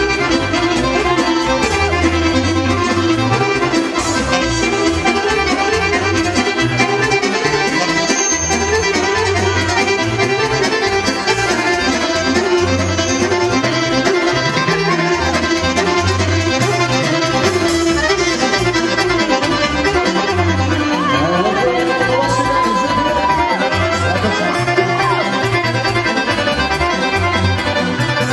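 Balkan folk dance music with a steady bass beat, reed instruments carrying the melody.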